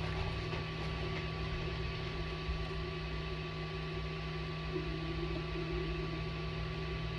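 A steady low hum with a thin, high steady tone above it, unchanging throughout.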